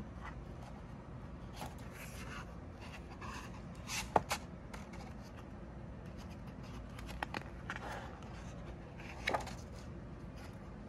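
Pages of a hardcover picture book being opened and turned by hand: several brief paper rustles and brushes, with a couple of sharp clicks about four seconds in.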